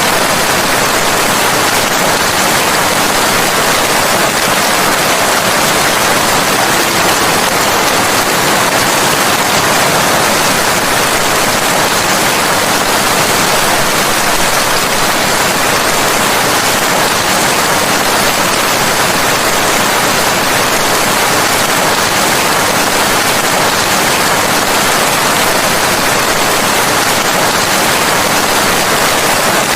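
Steady heavy rainfall, a dense even hiss with no distinct drops or breaks.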